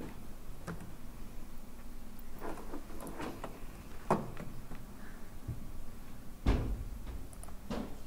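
Handling noise at a desk: scattered clicks and knocks, with one heavier low thump about six and a half seconds in, as a laptop is worked.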